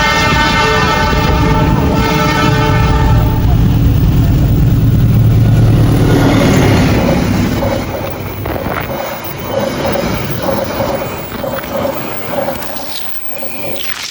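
CC 206 diesel locomotive's horn holding a long chord that stops about three and a half seconds in, then the locomotive's engine rumbling loudly past, followed by the Argo Wilis passenger coaches rolling by with a repeating clack of wheels over rail joints, fading toward the end.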